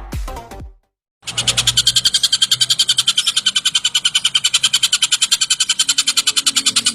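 A tengkek buto kingfisher's rapid chattering call: a fast, even run of high notes at about ten a second, starting about a second in after an intro tune cuts off.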